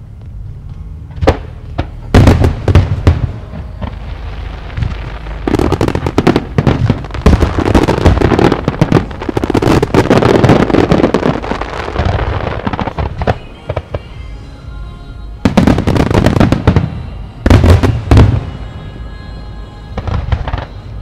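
Fireworks finale barrage: shells bursting with deep booms and crackle. A few separate bursts come in the first three seconds, then a dense, rapid run of bursts from about five to thirteen seconds in, and two more loud volleys at about fifteen and seventeen seconds in.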